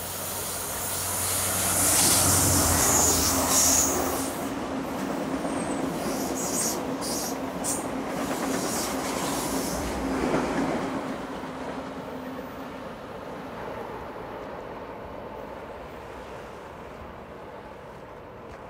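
Amtrak passenger train passing at speed: its Siemens Charger diesel locomotive goes by loudest about two to four seconds in, then the passenger cars rush past with wheel noise and brief high squeals, the sound slowly fading as the train moves away.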